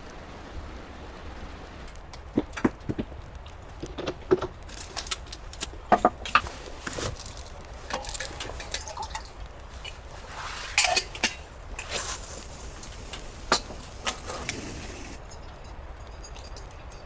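Irregular clicks, clinks and knocks of small objects being handled, over a steady low rumble.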